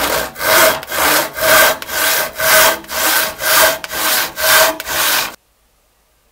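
Freshly sharpened old hand saw cutting into a wooden board, with brisk back-and-forth strokes about two a second. The sawing stops suddenly about five seconds in.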